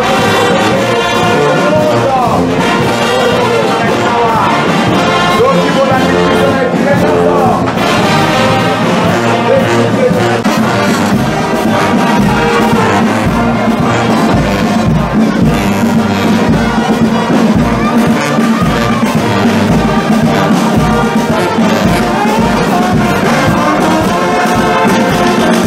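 Brass band music, trumpets and trombones playing together. A steady low beat comes in about halfway through.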